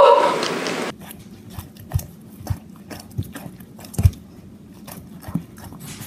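A dog chewing and mouthing bread on a countertop: irregular wet clicks and smacks with a few soft low knocks, the loudest about four seconds in.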